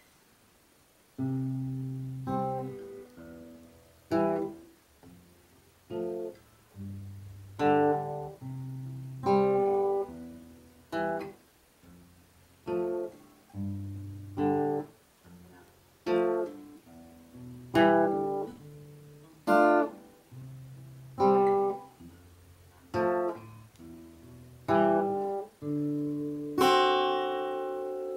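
Solo Epiphone acoustic guitar picking a slow introduction: chords struck about once a second or so, each left to ring and fade, closing on a long ringing chord near the end. The playing starts after about a second of near silence.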